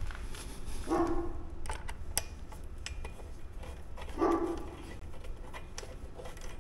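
A dog barks twice, about a second in and again past four seconds. Over it come small sharp clicks and taps of metal hardware being handled.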